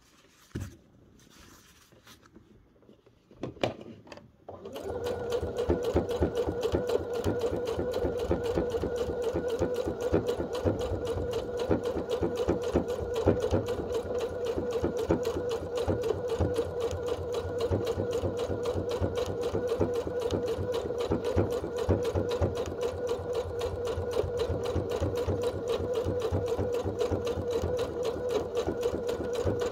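Domestic sewing machine doing free-motion quilting: after a couple of light knocks, it starts about five seconds in and runs steadily at speed, a motor hum with a rapid, even needle rhythm.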